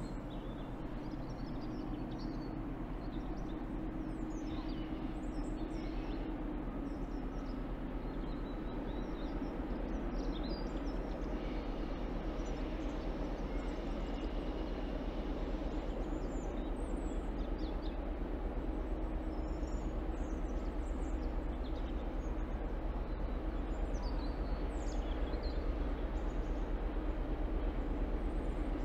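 Class 60 diesel locomotive 60056 approaching at the head of a heavy biomass freight train, its engine rumble growing steadily louder. Small birds chirp over it.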